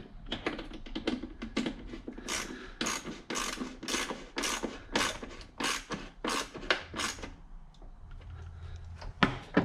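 Socket ratchet wrench clicking as bolts are tightened, a steady run of strokes at about three a second through the middle, with looser handling clatter before and after.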